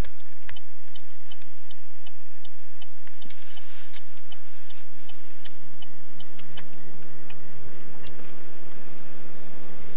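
Quick, regular ticking, about two or three clicks a second, over the steady hum of a car cabin, with a couple of brief hissing swells.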